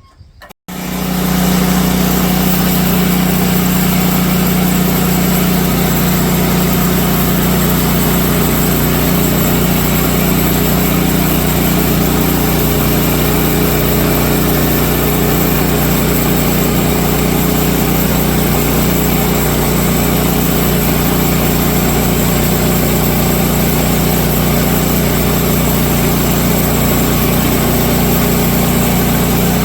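Gas engine of a Woodland Mills HM130 MAX bandsaw mill running steadily at speed, loud and even. It cuts in abruptly about half a second in.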